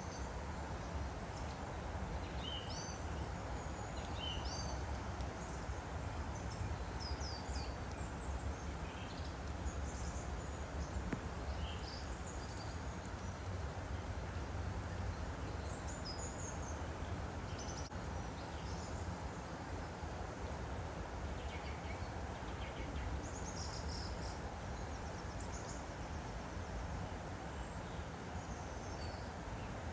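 Steady rush of a woodland stream, with many short, high bird chirps scattered throughout.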